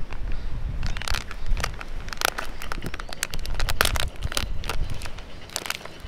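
Plastic snack pouch crinkling and crackling in the hands with irregular sharp crackles, thinning out near the end.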